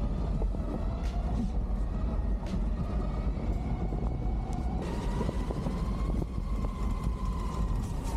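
A moving vehicle: a steady low rumble with a faint engine tone that rises slightly about five seconds in, and a few light clicks.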